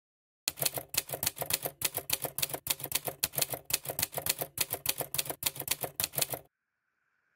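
Typewriter sound effect: a rapid run of keystroke clacks for about six seconds that stops abruptly, then a faint short tone near the end.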